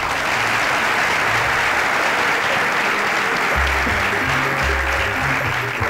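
Audience applauding, breaking out suddenly and thinning near the end, over background music with low bass notes that come in about halfway.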